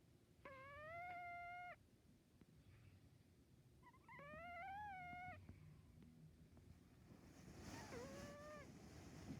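Sleeping tabby cat snoring in high-pitched squeaky tones: three drawn-out, fairly even-pitched notes, each over a second long and a few seconds apart, the last one softer.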